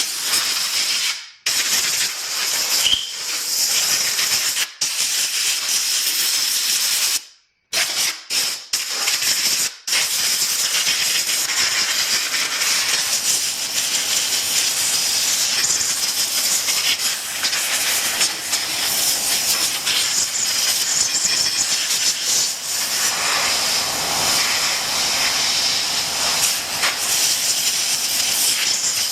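Compressed-air blow gun hissing as it blows dust off a push mower, in short blasts with brief stops during the first ten seconds, then one long continuous blast.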